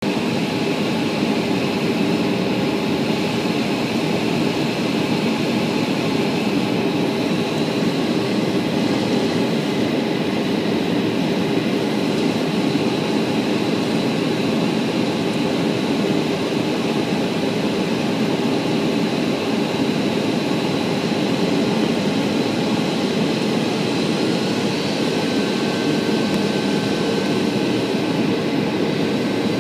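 Steady cabin noise of a Boeing 737 airliner in flight, heard from inside the cabin: an even rush with a faint steady high whine, and a second faint tone coming in near the end.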